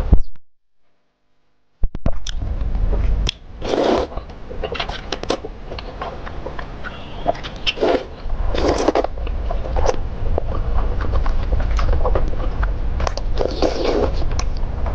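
Close-up slurping of thick sweet-potato starch noodles (suanla fen) in hot-and-sour soup: a series of wet slurps, several of them long, with small mouth smacks and clicks between them over a steady low hum. The sound cuts out completely for about a second and a half near the start.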